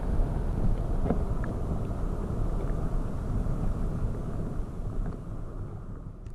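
Muffled low rumble and sloshing of tide-pool water, heard through a GoPro held underwater, with a few faint clicks.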